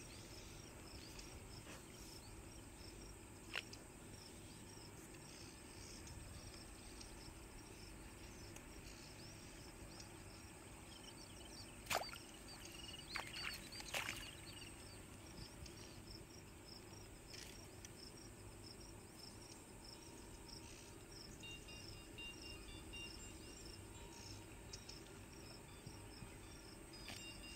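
Insects chirping steadily in a quiet outdoor background, with a sharp click about halfway through and a few more soon after.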